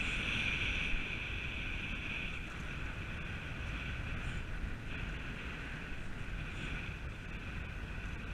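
Steady wind rumbling on the microphone over choppy seawater washing against the rocks.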